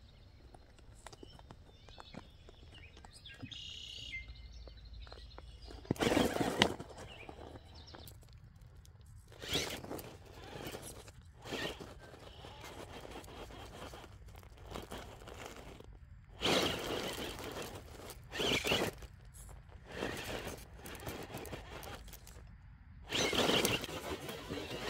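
RC rock crawler climbing rock: irregular bursts of its tyres scrabbling and grinding on stone and loose grit, between quieter pauses, loudest about six seconds in and near the end.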